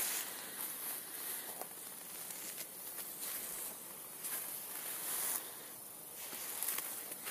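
Soft crunching footsteps in snow, a few slow steps over a steady outdoor hiss.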